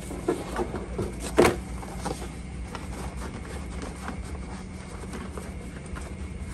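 A rolled mat being handled on a bamboo slat floor: a few knocks and bumps in the first two seconds, the loudest about a second and a half in, then light handling noises over a steady background hum.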